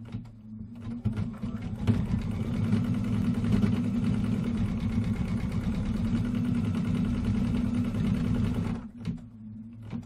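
Computerized embroidery machine stitching out a small eye in black thread: a few faint clicks, then it gets up to speed about a second in and runs steadily, stopping about nine seconds in.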